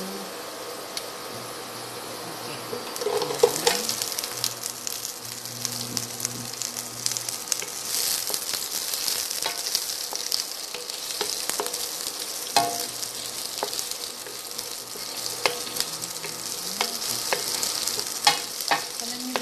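Chopped red and green bell peppers and onion sizzling as they are sautéed with garlic in oil in a nonstick pan. A wooden spatula scrapes and clicks against the pan as they are stirred. The sizzle grows louder about three seconds in.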